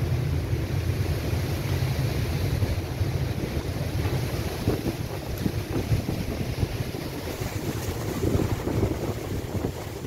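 Cyclone wind gusting hard against the phone's microphone, a deep buffeting rumble that swells in gusts around the middle and again near the end.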